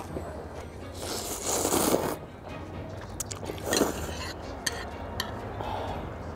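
Close-up eating sounds: noisy slurps of ramyeon noodles and broth from a small bowl, with chewing, and several sharp clicks of chopsticks against the bowl in the second half.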